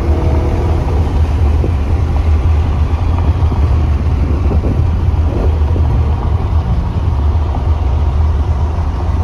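BMW E90 M3's 4.0-litre V8 cruising at a steady highway speed, heard from inside the cabin as an even low drone mixed with tyre and road noise.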